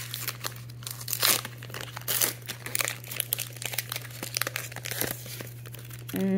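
Foil Pokémon booster pack wrapper crinkling and tearing as it is pulled open by hand, an irregular run of sharp crackles and rustles.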